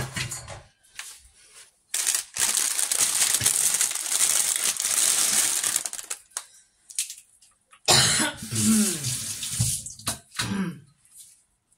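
Water running steadily from a tap for about four seconds, then a person's voice for a couple of seconds.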